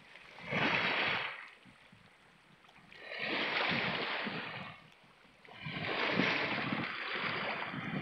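Small sea waves washing in over shoreline rocks: three surges of rushing water, about a second in, around three to five seconds, and again near the end. Each lasts one to two seconds, with quieter lulls between.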